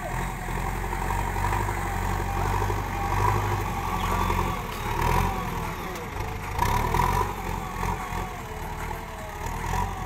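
JCB backhoe loader's diesel engine running under load, its revs rising and falling, as the front loader bucket pushes dry soil.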